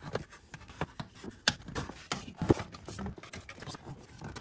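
Irregular clicks and light knocks of tools and parts being handled during reassembly work, about two a second, the sharpest about one and a half and two and a half seconds in.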